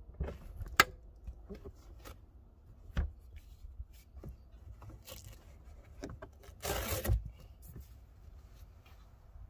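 Handling noises from a car's fold-down rear seat section and carpeted trunk trim being pulled down: scattered clicks and knocks, a sharp click just under a second in, a thump about three seconds in, and a brief scraping rustle about seven seconds in.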